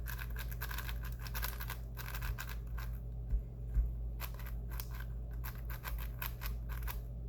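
MoYu Valk 5 M speed cube being turned quickly: a fast run of light plastic clicks and scrapes from the layers, broken by a couple of short pauses. The turning is very quiet.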